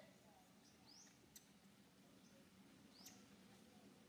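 Faint, short, high-pitched chirps from an animal, two of them about two seconds apart, with a couple of faint clicks, against near quiet.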